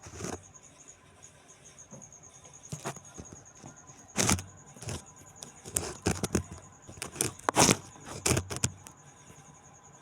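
A cricket trilling steadily. Over it comes a run of irregular sharp knocks and clatters, starting about four seconds in and loudest near the end.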